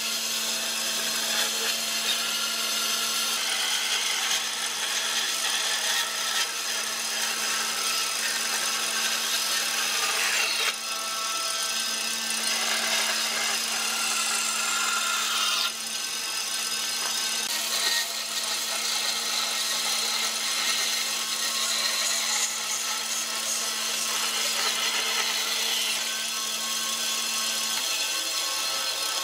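Bandsaw running with its blade cutting through a thick softwood board: a steady sawing sound over a low motor hum. The hum drops out shortly before the end.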